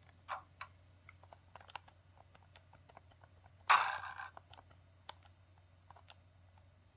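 Scattered light clicks over a low steady hum, with one short louder hissing burst about four seconds in: the opening of a LokSound 5 decoder's start-up sequence for an ÖBB 1144 electric locomotive model, played through the model's small speaker.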